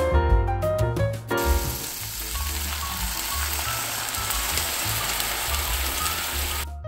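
Piano background music for about the first second and a half, then cream and milk sizzling in a hot frying pan with sliced mushrooms and garlic. The steady hiss cuts off suddenly near the end.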